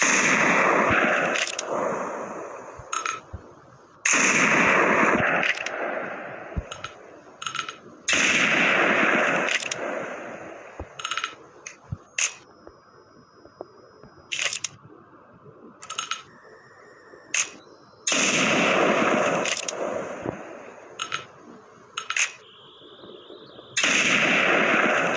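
Five loud gunshots, spaced unevenly and mostly about four seconds apart, each trailing off over a couple of seconds. Short sharp clicks fall between them.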